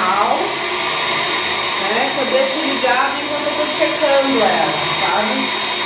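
Professional pet blow dryer running steadily: a loud, even rush of air with a thin, high, steady whine from its motor.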